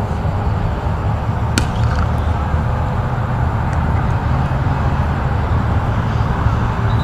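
Steady low rumbling background noise, with one sharp crack about a second and a half in: a cricket ball striking the bat in the nets.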